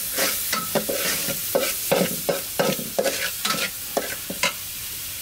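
Metal spoon stirring and scraping spice paste frying in oil in a metal pot, with repeated scrapes about two or three a second over a steady sizzle; the strokes stop near the end. The spices are being fried down (koshano) in the first stage of a curry.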